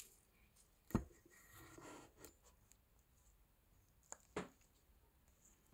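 Handling noise from a phone camera being picked up and moved by hand: a few knocks and soft rubs, the loudest a sharp knock about a second in, two more a little after four seconds.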